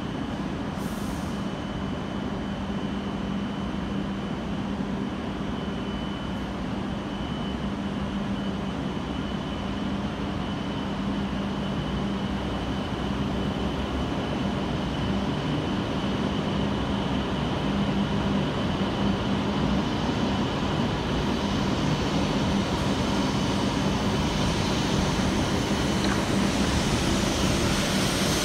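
E7 series Shinkansen departing from the platform: a steady running hum that grows gradually louder as the train gathers speed and its cars roll past.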